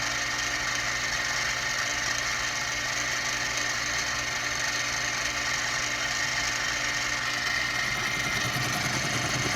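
Benchtop mini mill running steadily, its spindle turning the workpiece while a tool bit faces off the end.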